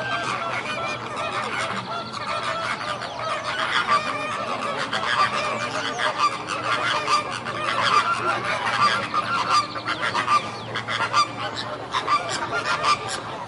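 A flock of flamingos honking: many short, overlapping nasal calls that keep up without a pause, some louder ones standing out.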